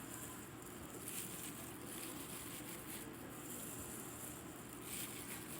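Faint steady background hiss with a few soft, brief handling noises.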